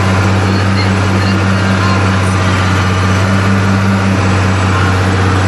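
Fiat 1000 Super tractor's diesel engine running steadily under load while pulling a Huard TRE 65 plough.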